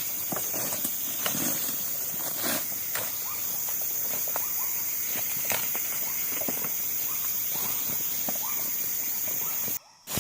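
Tropical forest ambience: a steady high-pitched insect drone with many scattered small clicks and short chirps. It drops out briefly near the end.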